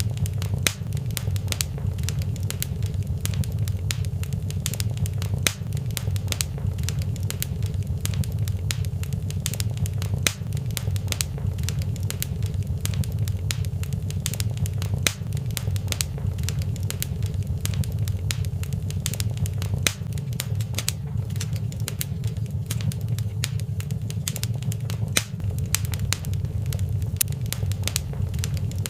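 Wood fire in a fireplace crackling, with many sharp irregular pops and snaps over a steady low rumble.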